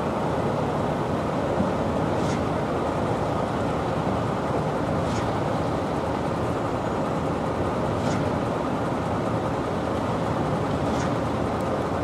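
Mack concrete mixer truck's heavy diesel engine running steadily, a dense low rumble, with a faint short high hiss repeating about every three seconds.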